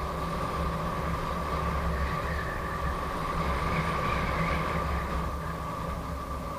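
Gotway MSP electric unicycle riding at highway speed: wind rumbling on the microphone over tyre and road noise, with a steady high whine underneath.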